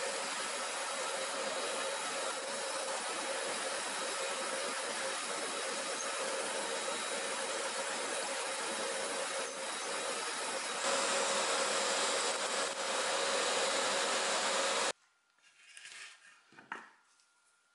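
Hollow-chisel mortiser running and boring a square mortise in a wooden rail, with a shop vacuum hose drawing off the chips: a steady machine noise that gets louder about eleven seconds in. It cuts off abruptly near the end, followed by a few faint scrapes of a pencil and wood being handled.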